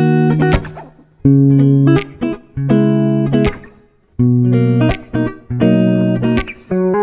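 Background music: plucked guitar playing chord phrases that pause briefly and start again.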